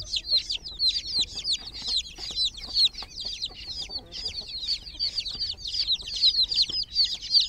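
A group of baby chicks peeping continuously: many overlapping short, high calls, each falling in pitch.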